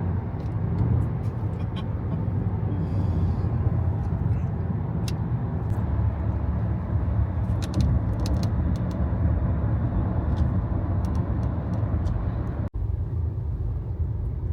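Steady road and engine noise heard inside a car cabin at highway speed, a low rumble with a few faint scattered clicks; it drops out for an instant near the end.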